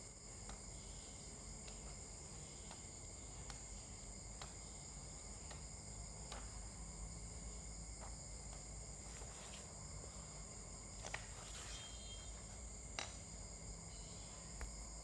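Faint background noise with no speech: a steady high-pitched whine made of a few held tones, with a low hum beneath and scattered soft clicks.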